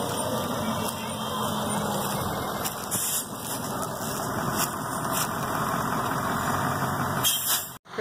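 Converted school bus engine running steadily as the bus drives slowly by and turns in, with a few faint clicks. The sound cuts out briefly near the end.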